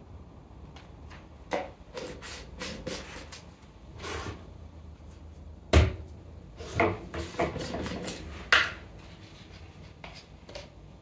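Irregular knocks, clatters and rubbing of objects being handled, with the loudest thump about halfway through.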